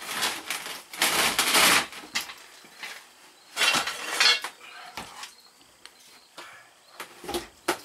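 Metal tools and parts clinking and clattering in a few short bursts, with sharp knocks in between.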